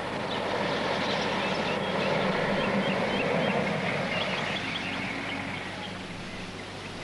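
Street traffic: a car driving past, its noise swelling to a peak midway and then fading.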